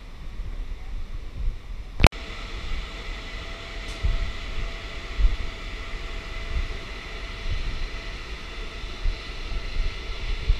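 Wind rumbling on the microphone in uneven gusts, with a steady mechanical hum of several tones. A single sharp click comes about two seconds in.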